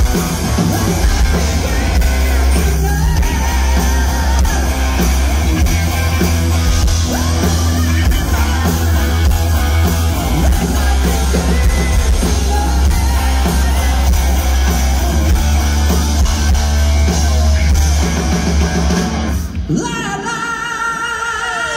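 A live rock band plays loud through the PA, with a singer, a drum kit and electric guitars, heard from inside the crowd on a phone microphone. The music cuts off abruptly near the end and gives way to the crowd cheering.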